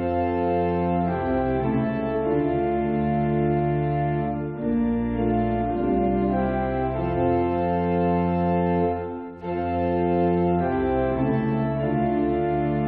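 Organ music playing slow, held chords, with a brief break about nine seconds in.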